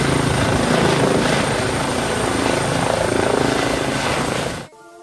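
Helicopter hovering low while coming in to land, heard close by: loud, steady rotor and engine noise with a thin high whine, which cuts off abruptly near the end.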